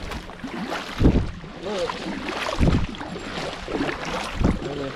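Wind buffeting the microphone in heavy low thumps about every second and a half, over the rustle of a kayak on the water.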